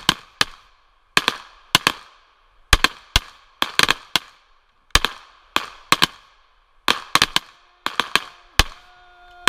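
Two shooters firing service-class pistols in rapid, overlapping strings: about two dozen sharp shots, often in quick pairs, each followed by a short ringing echo. A steady low tone comes in for the last second and a half.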